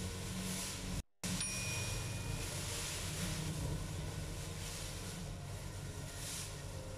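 Clear plastic hair-cutting cape rustling as it is draped over a seated customer, over a steady low hum. The sound drops out briefly about a second in, and just after it a single bright ding rings for about a second.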